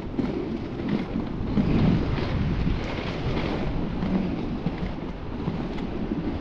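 Inline skate wheels rolling over paving slabs: a steady low rumble with a few faint clicks, and some wind on the microphone.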